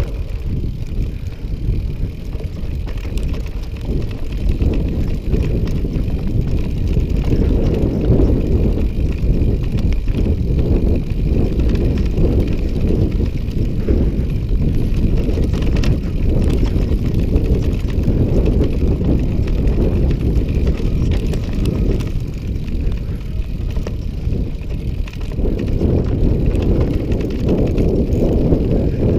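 Mountain bike riding over a rough trail: a continuous rumble of tyres and wind on the microphone, with frequent knocks and rattles from the bike over bumps.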